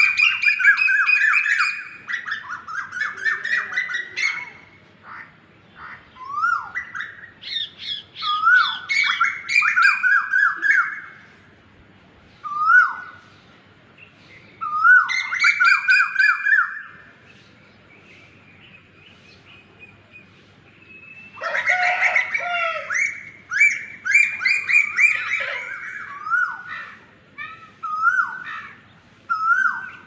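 Asian koel calling: loud, repeated 'koo-oo' notes that rise sharply in pitch, strung in bouts of fast runs several notes long, with single notes near the end and short quiet gaps between bouts.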